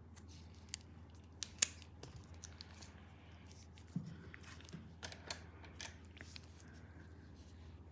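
Small metal extraction tools clicking and tapping, a handful of short sharp clicks spaced irregularly, the loudest about one and a half seconds in, over a low steady hum.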